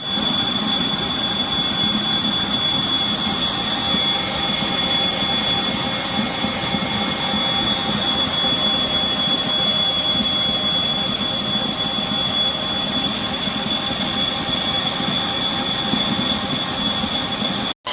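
Electric stand mixer running steadily with a loud, constant high-pitched whine over the motor hum; a second, lower whine joins about four seconds in.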